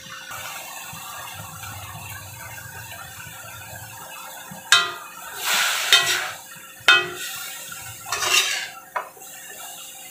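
Metal cooking utensils scraping and clanking against a stainless steel wok while cabbage, carrots and green beans are stir-fried. Low steady noise for the first few seconds, then from about halfway on four sharp ringing clinks, with swells of scraping and tossing in between.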